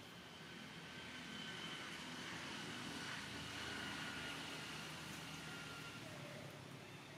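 Distant engine noise that swells for about four seconds and then fades, with a steady high whine on top, like something passing by.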